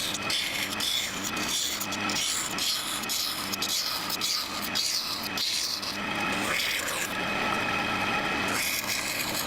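Hand filing on the knife: rhythmic rasping strokes, a little under two a second, running into a steadier continuous scrape about six seconds in.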